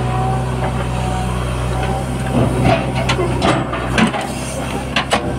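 JCB 3DX backhoe loader's diesel engine running steadily, with several sharp knocks and thumps from about two seconds in as the bucket digs and loads soil into the tractor trolley.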